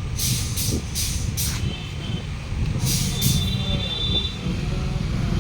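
Compressed air hissing in short bursts as an air hose chuck is pressed onto the valve of a 7.50 R16 radial tyre to inflate it: four quick hisses in the first second and a half, two more about three seconds in. A steady low rumble runs underneath.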